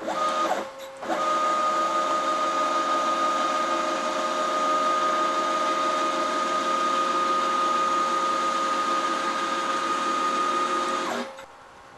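Stepper motors of a home-built KRMX01 CNC router whining as the gantry jogs across the table: a short move at the start, then one steady run of about ten seconds at an even pitch that stops near the end.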